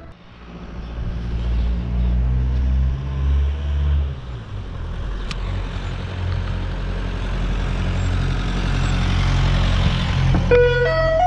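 A vehicle engine running with road noise, and a rushing sound that builds over the last few seconds. Near the end, the ice cream van's chime tune starts up again.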